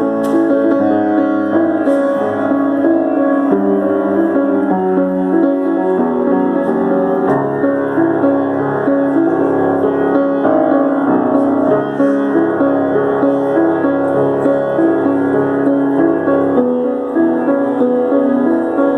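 Solo piano playing: a continuous passage of held chords and notes that change every second or so.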